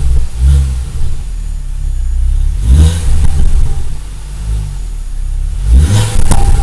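Ford Focus ST engine through its stock exhaust, running with a low note and revved three times in short blips, each rising and falling back.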